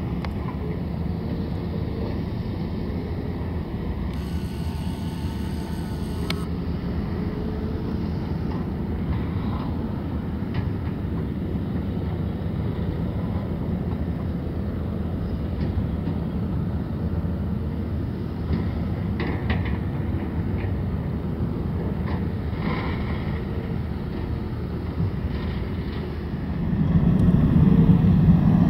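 Steady rumble of the Mitsubishi MRJ90 regional jet's Pratt & Whitney PW1200G geared turbofans at taxi power. Near the end a much louder low rumble comes in and holds.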